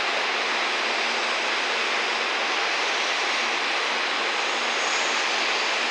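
Steady, even rushing noise at a constant level with no distinct events: outdoor background roar of the surroundings.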